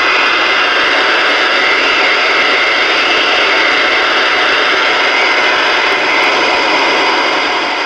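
CB radio receiver putting out a steady loud hiss of static through its speaker with the squelch open, no signal on the channel; it starts to fade near the end.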